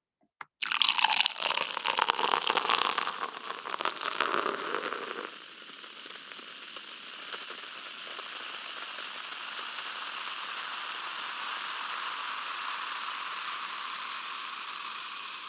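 A click, then about five seconds of loud splashing, crackling liquid noise that settles into a steady hiss.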